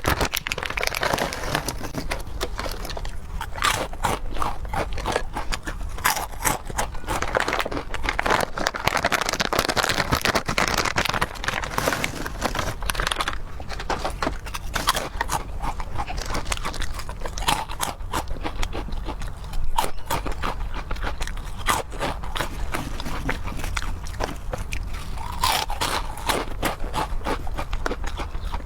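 Close-miked eating sounds: a person chewing and biting food continuously, with many sharp clicks.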